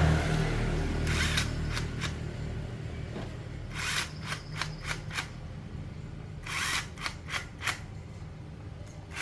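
Small petrol engine idling steadily after being revved. Several brief noisy bursts and clicks come over it about a second in, around four seconds and again around seven seconds.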